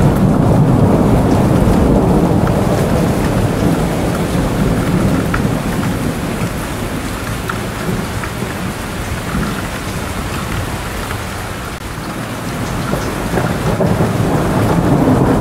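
Rain falling with rolling thunder: a deep, continuous rumble that slowly fades, is lowest about twelve seconds in, then builds again near the end.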